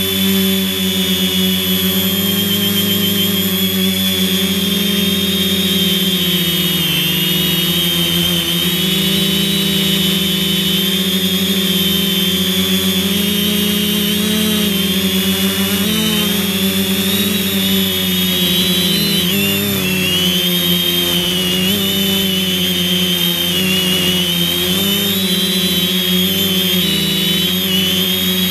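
Quadcopter's brushless electric motors and propellers whining steadily, close up from on board, the pitch wavering up and down with small changes in motor speed.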